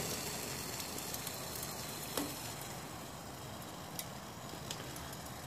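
Soft steady hiss and sizzle from an MSR Reactor stove and its just-boiled pot as the gas is shut off, fading slightly, with a light knock about two seconds in and a couple of faint ticks later.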